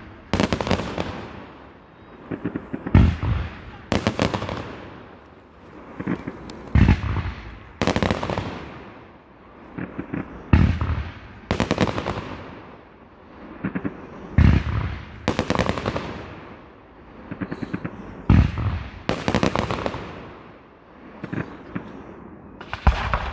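Aerial firework shells bursting, with a deep boom about every four seconds, each followed by a spell of crackling.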